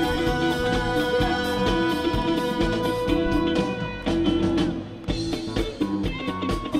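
Live band playing amplified music on an outdoor stage, with electric guitar and drum kit over a steady beat.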